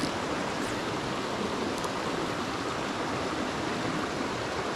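A small, clear mountain creek flowing and riffling over rocks: a steady rush of running water.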